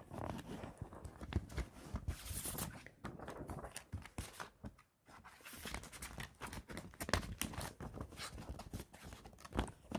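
Handling of a plastic DVD case and its paper cover insert: rustling and crinkling with scattered clicks and knocks as the reversible cover is turned around by hand, with a brief pause about five seconds in.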